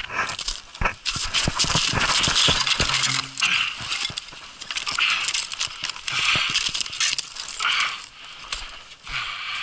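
Footsteps crunching and scraping on icy, crusted snow, step after step, with a plastic bucket's metal handle rattling as it swings.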